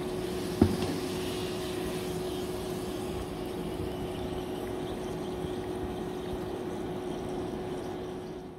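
Poori deep-frying in hot oil: a steady sizzle under a constant low hum, with one sharp knock about half a second in.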